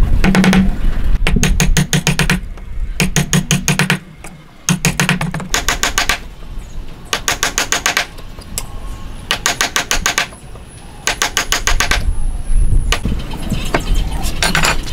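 Wooden mallet striking a chisel in quick runs of taps, chopping a mortise into a wooden block. The blows come in about nine short bursts with brief pauses between them.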